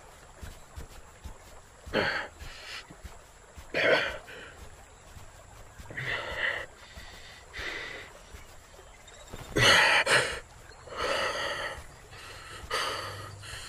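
A man's heavy, wheezing gasps and breaths, about eight of them, the loudest pair near the middle. They come from a hurt, bloodied captive.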